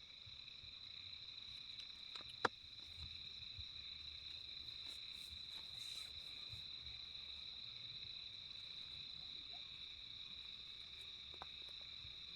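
Insects chirring in a steady, high-pitched chorus, with one sharp click about two and a half seconds in and a fainter one near the end.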